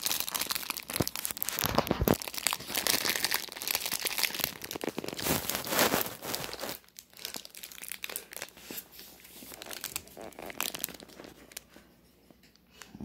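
Clear plastic wrapper of a cheese Danish crinkling and crackling as it is handled and pulled back off the pastry, dying down near the end.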